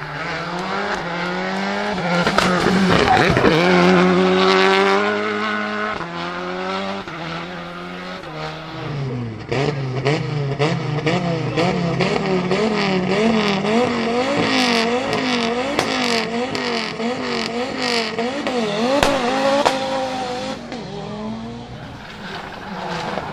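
Rally car engines at full throttle. First a car accelerates hard, its pitch climbing and stepping with each upshift. Then a car revs up and down over and over, with many sharp cracks, before the sound drops away near the end.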